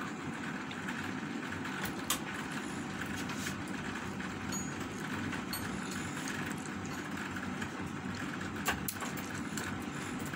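A steady mechanical hum in the background, with two short clicks, one about two seconds in and one near the end.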